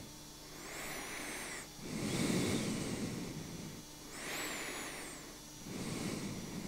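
A man breathing heavily and noisily in his sleep: two slow breaths in and out. Each in-breath carries a thin whistle that rises and falls, and each out-breath is louder.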